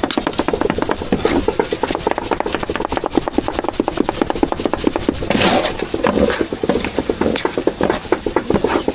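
Cleaver rapidly chopping meat on a wooden chopping block, a fast, steady run of knocks, several strokes a second. The block is worn hollow from use. A brief louder scrape comes about five seconds in.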